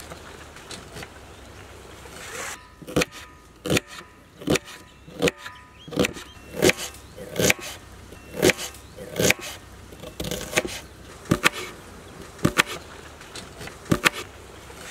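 Kitchen knife chopping small red onions and green chillies on a wooden cutting board: a series of sharp chops, roughly one a second, starting about three seconds in.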